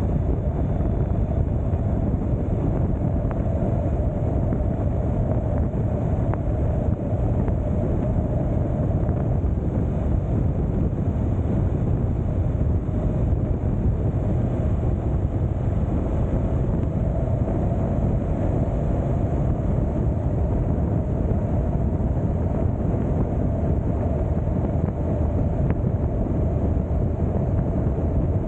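Steady wind rush buffeting the microphone on a moving open vehicle, with a constant drone of engine and road noise beneath it at cruising speed.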